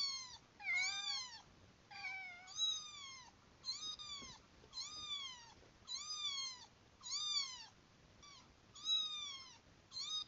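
Kitten meowing over and over, high-pitched calls that rise and fall, about one a second, played back as a recording.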